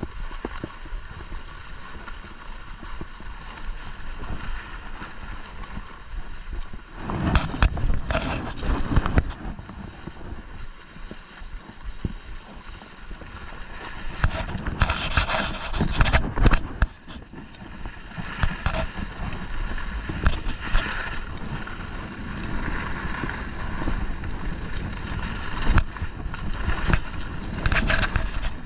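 Skis hissing and scraping over packed snow, with wind rushing over the camera microphone; the scraping surges louder in several bursts, during turns.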